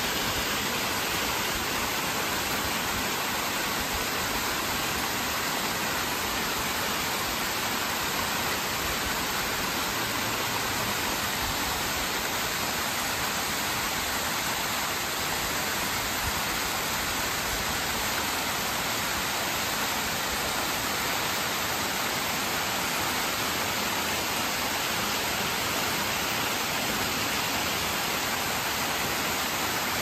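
Small woodland stream running high after a rain storm, its water rushing and splashing down rock-ledge cascades in a steady, even rush.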